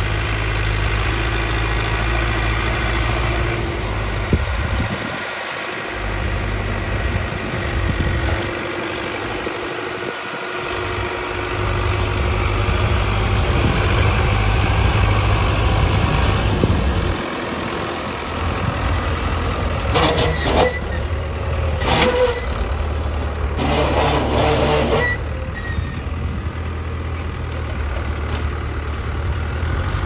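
New Holland TT75 tractor's diesel engine running under load as it pulls a three-disc plough through dry ground, its low drone swelling and dipping. Several short harsh bursts of noise come about two-thirds of the way through.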